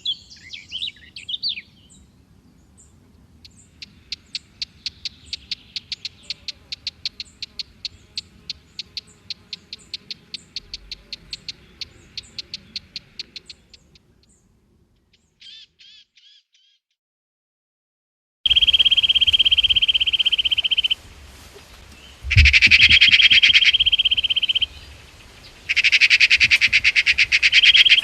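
Birds calling: a few quick chirps, then a long series of short, evenly repeated calls about three a second. After a pause, louder, high, held trills come in several long stretches.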